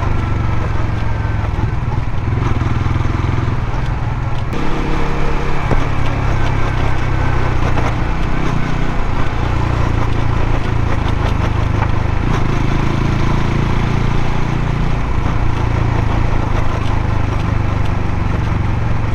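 Suzuki GSX-S125 single-cylinder engine running steadily, with a rattling noise from the drive chain: the chain is badly slack and slaps against the chain guide.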